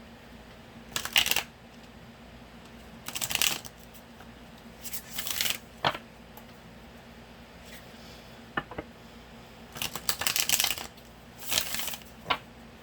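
A tarot deck being shuffled by hand in about five short riffling bursts, with a few sharp card taps between them.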